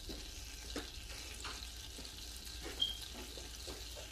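Faint sizzle of butter melting in a pan on the hob, with a few soft clicks and a short high beep about three seconds in.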